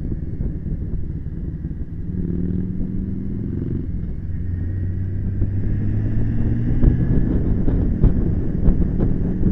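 Motorcycle riding at road speed: low engine rumble under heavy wind buffeting on the microphone, with a steady engine note coming through in the middle and rising slightly before fading back into the wind.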